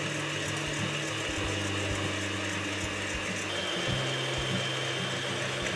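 Electric hand mixer running, its beaters whipping a hot coffee and sugar syrup into foam in a stainless steel bowl.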